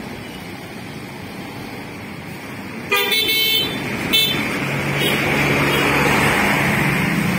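A passing bus sounds its horn in a short blast about three seconds in and a shorter one a second later, then its engine runs louder as it goes by, amid road traffic noise.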